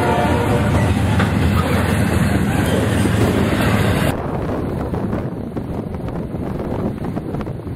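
Freight train cars rolling past close by, with steady wheel and rail noise. About four seconds in, the sound switches abruptly to wind buffeting the microphone.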